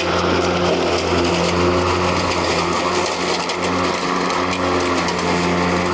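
Mowrator S1 AWD battery-electric remote-controlled mower running with its blades spinning while it mows: a steady motor hum with a thin high whine over it and a constant rush of cutting noise.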